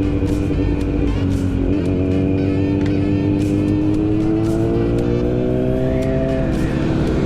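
Motorcycle engine running under way, holding a steady note for a couple of seconds, then rising smoothly in pitch as the bike accelerates, and easing off near the end.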